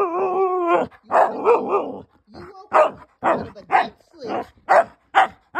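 Husky talking back: a drawn-out pitched howling call, then a run of short barks and yips, about two a second.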